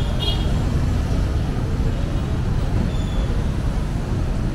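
City street traffic: a steady low rumble of passing vehicles and motorcycles, with two short high chirps right at the start.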